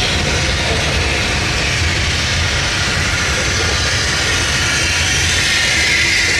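A train rolling past close by: a loud, steady rumble of wheels on the rails with a low engine drone underneath.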